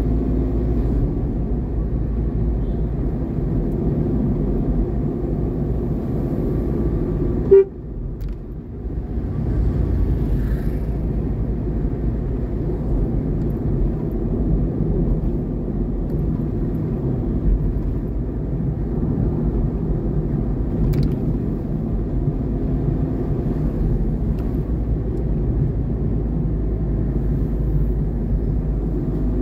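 Engine and road noise of a vehicle on the move, a steady drone. A single sharp knock about seven and a half seconds in, after which the sound briefly drops away before the drone returns.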